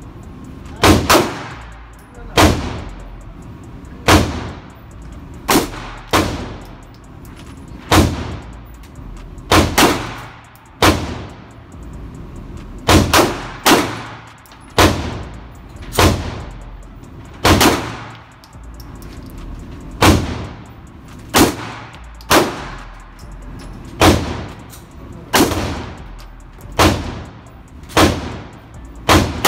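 Glock 17 9mm pistol fired in slow, steady succession at an indoor range: about two dozen shots, roughly one every second and a half, with a few fired in quick pairs. Each shot has a short echo off the range walls.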